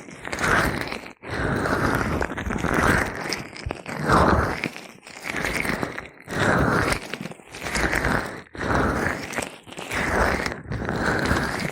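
Gloved hands rubbing oil over an ear, making slick, crackly rubbing strokes that come about once a second in a slow, even rhythm.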